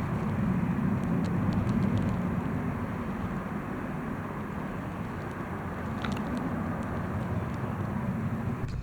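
Steady rumble of a jet airliner's engines with wind on the microphone, a little louder in the first two seconds; it cuts off suddenly near the end.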